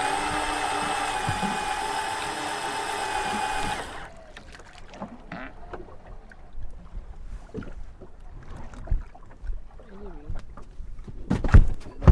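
Electric deep-drop fishing reel's motor whining steadily as it winds in line, cutting off suddenly about four seconds in. After that come scattered light knocks on the boat, with a louder thump near the end.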